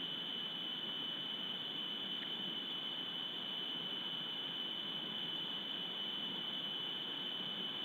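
Steady hiss with a constant high-pitched whine, typical of electronic noise from a wildlife camera's microphone.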